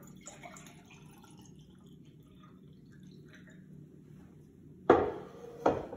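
Water poured from a glass jug into a drinking glass, a faint trickle. About five seconds in comes a sharp knock, with a second, smaller one just before the end, as the jug is set down on the hard countertop.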